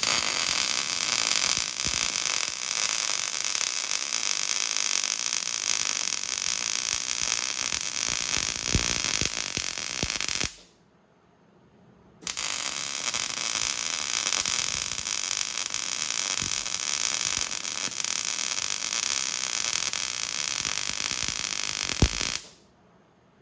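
Welding arc running in two steady crackling beads of about ten seconds each, with a short pause between them: a double pass on the mount's joints.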